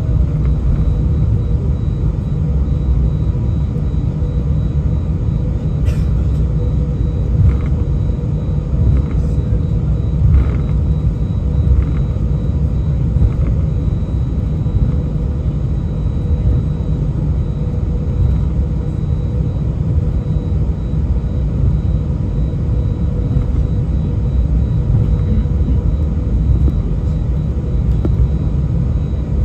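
Cabin of an Airbus A319 taxiing: a steady low rumble from the jet engines at taxi power and the rolling wheels, with a faint steady hum and a few soft knocks.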